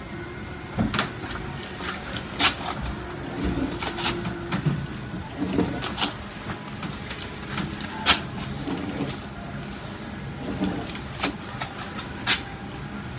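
Edge of a brayer scraping and tapping lines into cold wax on a painting panel: short scrapes and sharp clicks every second or two.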